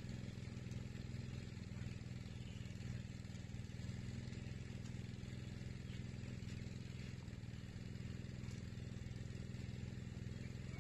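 A small engine idling steadily: a constant low hum that does not rise or fall.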